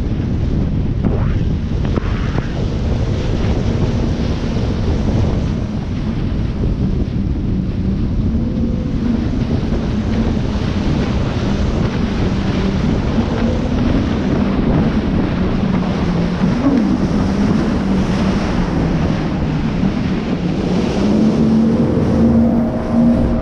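Jet ski engine running at speed, its drone wavering and rising and falling with the throttle, under heavy wind buffeting on the microphone and the rush of water and spray.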